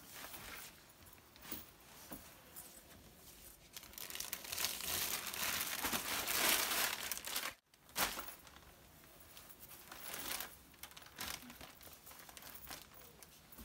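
Rustling and crinkling of a dress's fabric and its plastic wrapping as it is unfolded and spread out on a counter. It is loudest a little before the middle and cuts out for a moment just past halfway.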